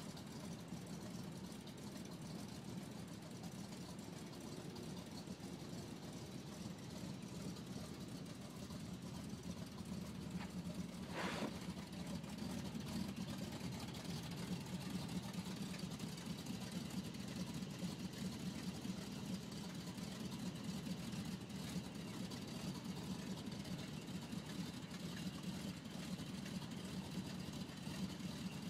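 Ford 360 cubic-inch FE V8 idling steadily through long-tube headers and true dual exhaust with Cherry Bomb glass packs, a low, even rumble that grows a little louder about twelve seconds in.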